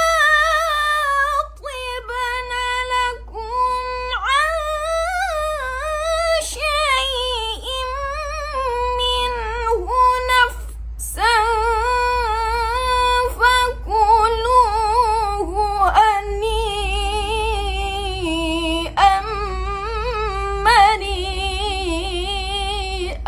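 A woman reciting the Qur'an in the melodic tilawah style, holding long notes with rapid ornamental turns, in several long phrases separated by short breaths, over a steady low hum.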